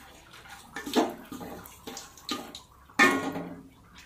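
Water splashing and sloshing in a kitchen vessel as rice is rinsed by hand, in irregular bursts, with two louder splashes about a second in and near three seconds.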